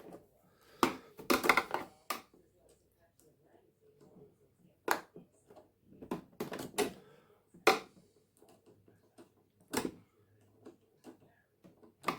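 Scattered sharp clicks and light knocks, a handful of separate ones with quiet between, from small tools and metal parts being handled at a sewing machine while a new needle is fitted.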